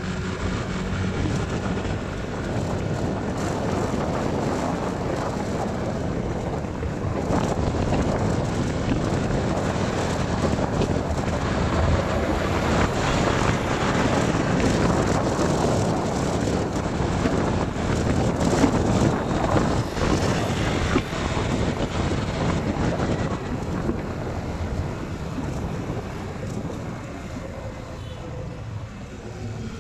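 Wind rushing over the microphone and the running noise of a vehicle moving along a road, with engine and tyre sound underneath. It grows louder several seconds in and eases off over the last several seconds.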